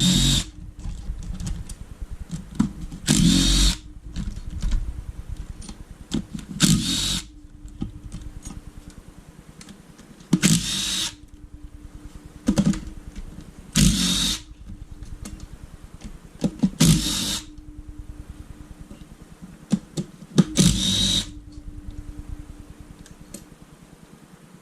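Power drill-driver spinning out motorcycle engine crankcase bolts in seven short bursts, each about a second long and a few seconds apart, with a faint steady hum and small clicks between them.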